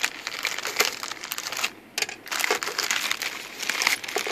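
Clear plastic zip bag of small metal fittings crinkling as it is handled, in two spells with a short pause between them.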